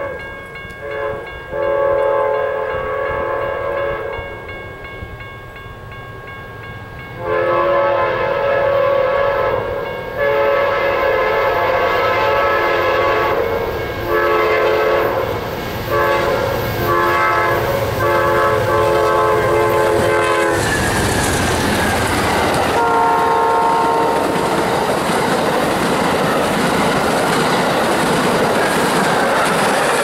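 GE P42DC locomotive's multi-chime air horn giving a horn show: a few short blasts, then a string of long blasts with brief breaks, louder from about seven seconds in. About twenty seconds in, the locomotives pass at speed in a rush of engine and wheel noise with one more horn blast, then the passenger cars roll by with wheels clattering over the rail joints.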